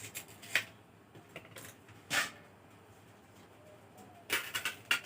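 A blade cutting into a giant taro (maan kochu) corm: a few separate slicing strokes about a second and a half apart, then a quick run of strokes near the end.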